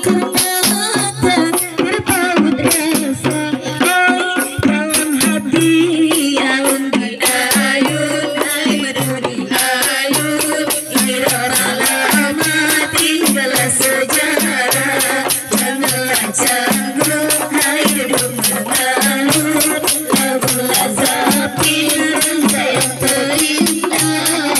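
Rebana frame drums beaten by a group in a steady, repeating interlocking rhythm, with voices singing over them through a microphone.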